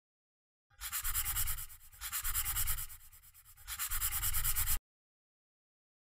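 Pen scratching across paper in three strokes of about a second each, a handwriting sound effect, cutting off abruptly near the end.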